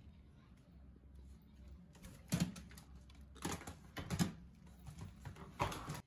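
A Mitsubishi Electric canister vacuum cleaner being moved about on a wooden floor: four or five sharp plastic knocks and clicks over a low, faint, steady hum.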